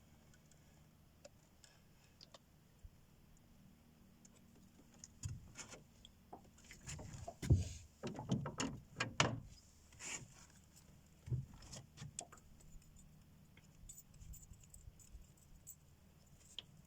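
A run of knocks and rattles from something being handled, thickest and loudest about halfway through, then a few faint clicks, over a faint steady low hum.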